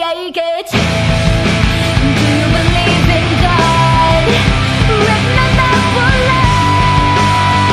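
Loud rock music laid over the footage, with the full band coming back in after a brief break under a second in.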